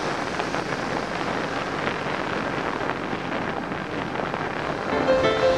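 Wind rushing over a helmet-mounted camera's microphone, mixed with the running of an enduro motorcycle. Music comes in near the end.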